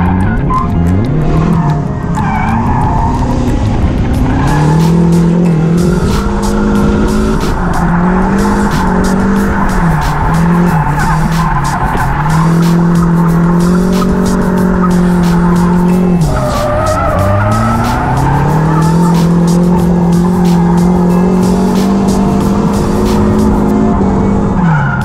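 Nissan 240SX S14's turbocharged SR20DET four-cylinder engine held high in the revs through a drift run, heard from inside the cabin, with tyre noise underneath. The revs drop and climb back several times as the throttle is lifted and reapplied, most sharply about sixteen seconds in.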